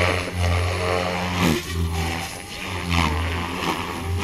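Electric RC helicopter flying low 3D manoeuvres: the rotor hums and whooshes, its pitch gliding up and down and its loudness swelling several times as the blades load and unload.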